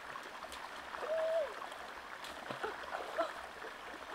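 Stream water running steadily, with one short pitched call about a second in and a few faint brief chirps later.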